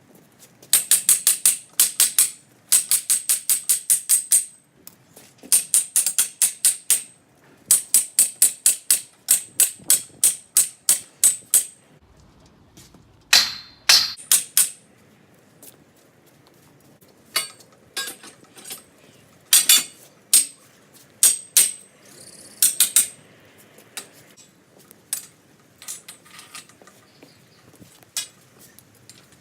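Metal tools working steel scaffolding fittings: rapid runs of sharp metallic clicks, about seven a second, each run lasting one to two seconds, with slower, scattered clicks in the second half.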